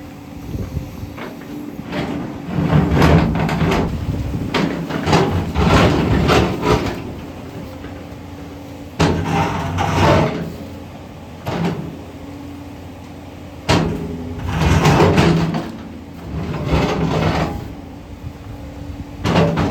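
JCB 245 HD LR long-reach excavator's diesel engine running steadily, with repeated bursts of its bucket scraping and grinding on rock, two of them starting suddenly, about nine and fourteen seconds in.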